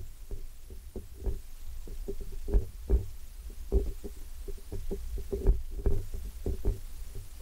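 Irregular dull knocks and thumps, two to three a second, from a handheld camera being carried while walking, with music playing faintly beneath.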